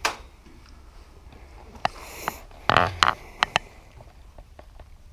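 Over-under shotgun being handled: a string of sharp clicks and knocks as it is readied and mounted, with a short breathy hiss about two seconds in.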